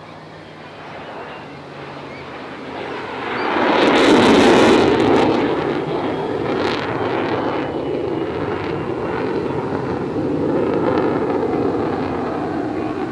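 Military jet making a low pass: jet noise swells to its loudest about four seconds in, dropping in pitch as it goes by, then runs on steadily.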